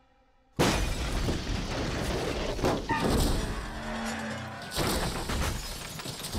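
Van crash in a film soundtrack. After a moment of near silence, a sudden loud crash comes about half a second in, followed by continuing crunching and shattering with further heavy impacts as the van flips and tumbles. Music plays underneath.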